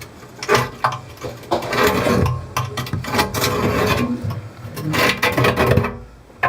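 Irregular scraping and rubbing, with short knocks, as of something being handled or shifted against a hard surface; it dies down near the end.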